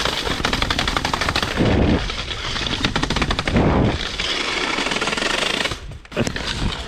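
Bare metal rear rim of a mountain bike ridden with no tire, clattering rapidly over the ground in a fast stream of clicks, with two heavier impacts about two and three and a half seconds in. The wheel has lost its spoke tension and is breaking up.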